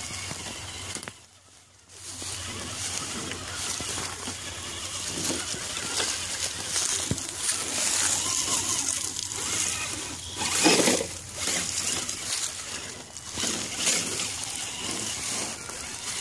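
Dry grass and brush rustling and crunching as the RC crawler truck pushes through it, with a brief lull about a second in and a louder surge of crackling about two-thirds of the way through.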